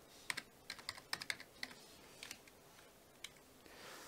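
Faint computer-keyboard typing: a quick run of keystroke clicks in the first couple of seconds, then a few single keystrokes.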